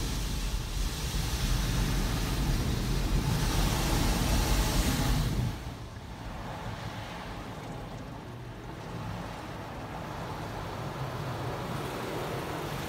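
Car-wash water spray hitting the car's windshield and body, heard from inside the cabin, cutting off suddenly about halfway through. After that, only a quieter, steady low rumble remains.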